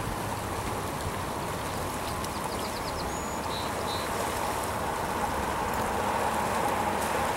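Shallow stream running over gravel riffles: a steady rush of water that grows a little louder near the end.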